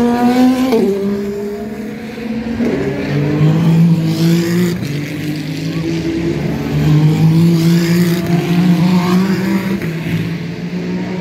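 Endurance race car engines passing through a chicane. In the first three seconds the engine note drops in sharp steps as they brake and downshift. It then climbs again in a series of steps as they accelerate out.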